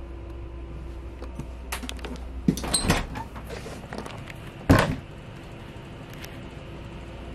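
A few sharp knocks and clicks over a steady low hum, the loudest about four and a half seconds in.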